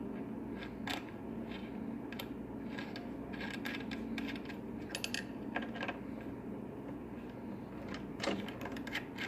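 Small metal clicks and taps as a threaded piece of a cam lock is screwed onto the lock by hand, over a steady low hum.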